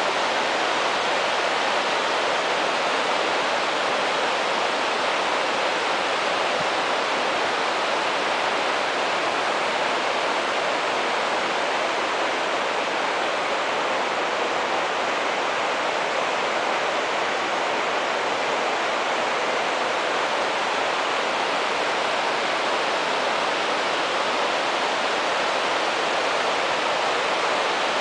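Steady, even rush of a waterfall's falling water, unchanging throughout.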